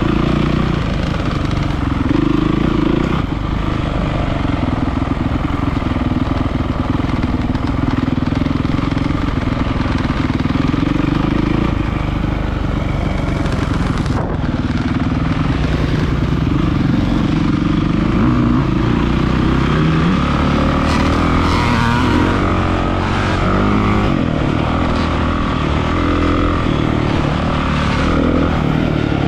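Honda CRF250 four-stroke single-cylinder dirt bike engine running under the rider, its pitch rising and falling as the throttle is worked through the gears.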